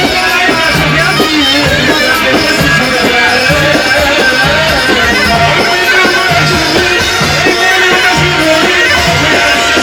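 Loud amplified music with a steady, repeating bass beat under melodic instrumental lines.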